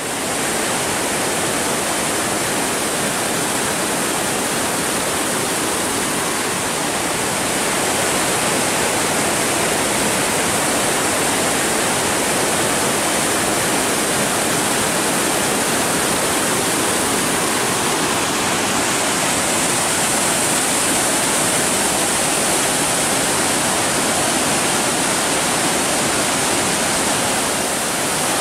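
A rain-swollen creek in flood rushing over and between large boulders in a steady, loud churn of white water.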